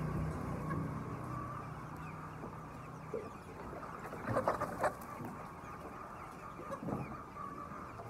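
Large flock of chickens clucking: a constant chatter of overlapping calls, with a burst of louder squawks about four to five seconds in and another near seven seconds.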